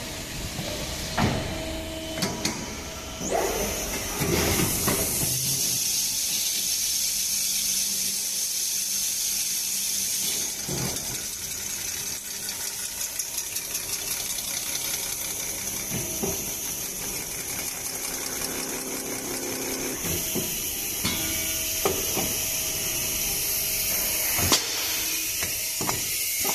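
Automatic cookware edge-turning and deburring machine working on pressure cooker bodies: a steady high hiss through most of it, broken by a clank every few seconds.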